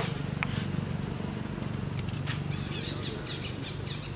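Outdoor ambience: a steady low hum, with a couple of light clicks about two seconds in and short high chirping calls repeating from about halfway through.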